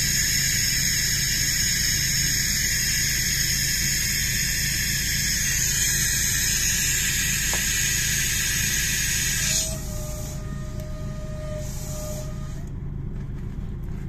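Compressed air hissing steadily in a semi-trailer's air suspension system, cutting off suddenly about two-thirds of the way through. A steady low hum of an idling truck engine runs underneath.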